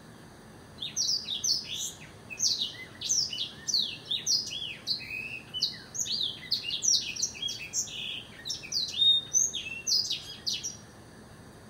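Blackthroat (black-throated canary) singing a long, fast, varied song of quick high twittering notes, starting about a second in and stopping near the end.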